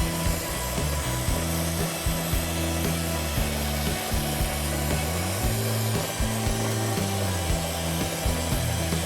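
Steady hiss of a jeweller's soldering torch flame heating a silver baseplate while the solder flows under the bezel. Background music with low held notes plays underneath.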